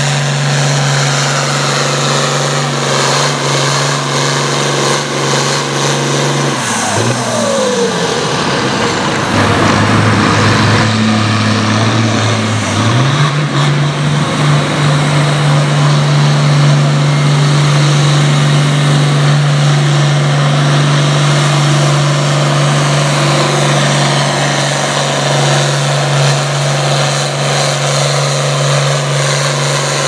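International 1066 Turbo farm tractor's turbocharged diesel engine running hard under load while pulling a weight-transfer sled. Its steady drone drops lower in pitch about seven seconds in, as the engine lugs down under the sled, and climbs back up about six seconds later.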